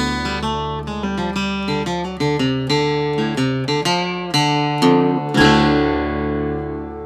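Acoustic guitar music: a run of plucked notes over a steady low bass, ending about five seconds in on a chord that rings out and fades.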